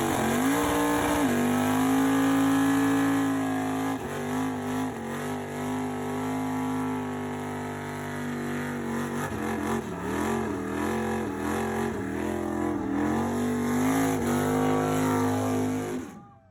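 A vehicle engine revving hard and held at high revs. Its pitch is steady at first, then dips and rises several times, and it cuts off suddenly near the end.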